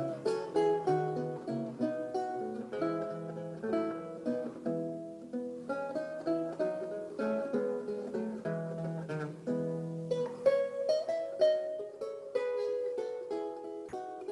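Solo lute played by plucking: a melody over a lower bass line, several notes sounding together.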